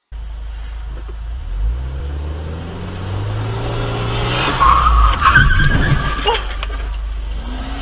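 Car engine revving as the car speeds up, then tyres squealing in a skid for about a second and a half, with a few sharp knocks during the squeal.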